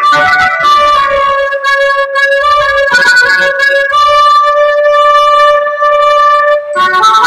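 Instrumental music: a melody of long, held, reedy notes with rich overtones, and little or no drumming.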